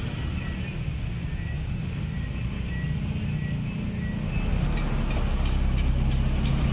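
Steady low rumble of road traffic at a level crossing, getting louder about four and a half seconds in as vehicles come close.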